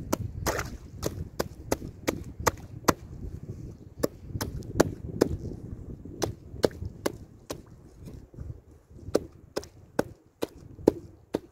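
A knife blade stabbing and chipping into lake ice about four inches thick to cut a fishing hole: a run of sharp strikes at about two to three a second, with a brief pause about ten seconds in.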